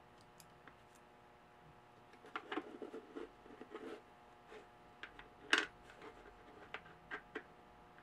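Irregular small clicks and rustles of hands handling a moped's tail cover and its small screw and nut, with a cluster of light taps and one sharper click a little past halfway.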